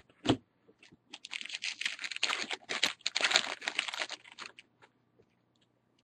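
Baseball trading cards and packs being handled: a single tap, then a dense, rapid crackling of card stock from about a second in until about four and a half seconds.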